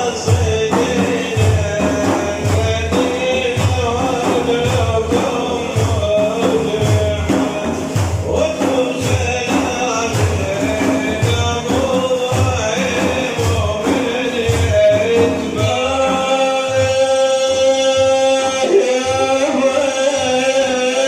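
Men singing an Islamic devotional praise song (manqaba) over frame drums beating a steady rhythm. About three-quarters of the way through, the voices hold one long, steady note.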